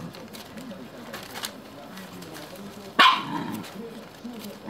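A Shiba Inu giving one sharp, loud bark about three seconds in, with another starting right at the end.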